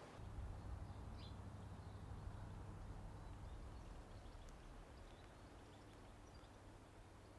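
Faint outdoor ambience: a low steady hum that slowly fades, with a few faint high bird chirps about a second in.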